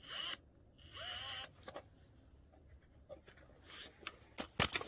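Cordless electric ratchet running in two short bursts, the second spinning up with a rising whine, as it loosens a bolt on a power tiller engine. Then a scatter of sharp clicks, loudest near the end.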